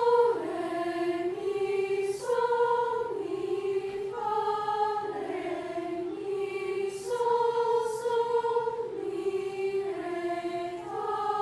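A choir of young singers sings a five-note pentachord melody in unison, held notes stepping up and down in pitch about once a second.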